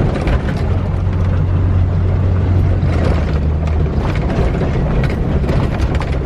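Jeep Wrangler JK's engine running at low, steady revs on a dirt trail, with scattered knocks and rattles over the rough ground.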